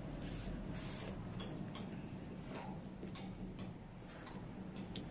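Light, irregular clicks and crackles of a crisp pani puri shell being cracked open and filled with a spoon.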